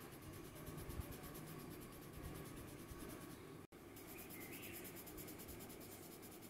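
Grey coloured pencil shading on drawing paper: a faint, steady scratching as the lead is rubbed back and forth. The sound drops out for an instant about halfway through.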